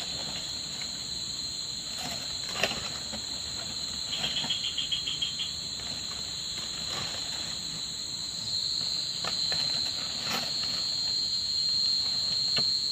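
Night insects droning in a steady, high-pitched chorus, with a short rapid trill about four seconds in and a few faint clicks.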